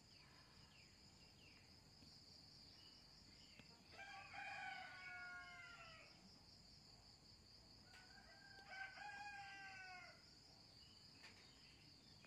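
A rooster crows twice, each crow about two seconds long, the second starting about four seconds after the first. Under it runs a steady, high-pitched insect trill, like crickets.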